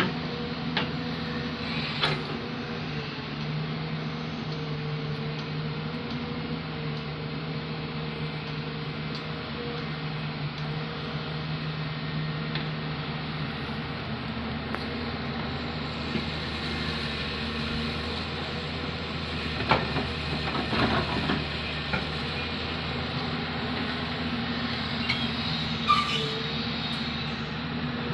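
Diesel engine of an earthmoving machine running steadily under work, with a few short knocks, a cluster about two-thirds of the way through and another near the end.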